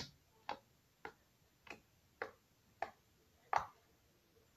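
White slime being pressed and poked by hand on a board, giving small sharp clicking pops about every half second, seven in all.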